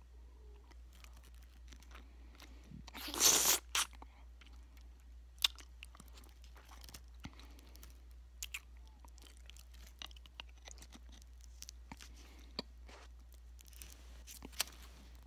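Close mouth sounds of someone eating a large hard candy cane: scattered wet clicks, sucking and crunches, with one loud crunch about three seconds in.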